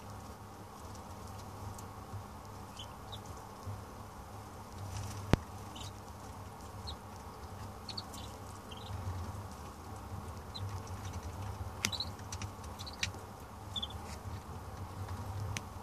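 Madagascar teal ducklings giving short, high peeps now and then, more often in the second half, with small pattering and clicking as they dabble and peck in a shallow dish of duckweed. A steady low hum runs underneath, and a single sharp click comes about five seconds in.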